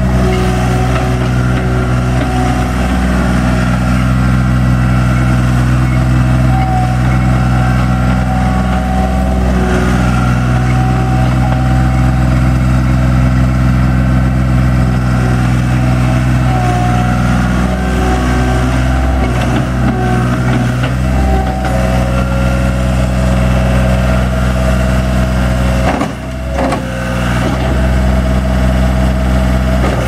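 John Deere 240 skid steer's 2.9-litre four-cylinder diesel running steadily as the machine drives and turns. The engine note wavers about two-thirds of the way through and dips briefly near the end.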